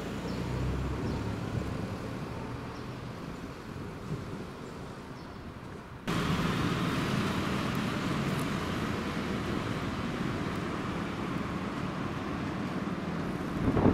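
Road traffic on a city street, a steady haze of vehicle noise with a low rumble. About six seconds in it jumps suddenly louder and brighter.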